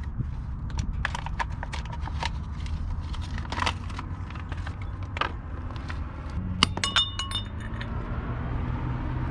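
A small mallet tapping repeatedly on a metal wheel dust cap to drive it onto the hub, the strikes irregular and about one or two a second. About seven seconds in comes a quick cluster of sharper metallic clinks with a brief ring.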